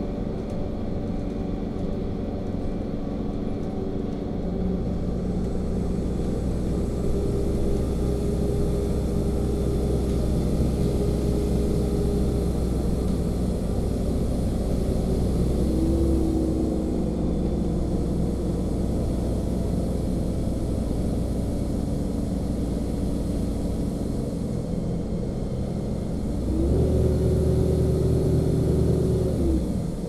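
LiAZ-5292.65 city bus heard from inside its cabin while driving: a steady low engine and drivetrain drone. It grows louder about four seconds in and again near the end, where a steady whine sets in and drops away just before the close.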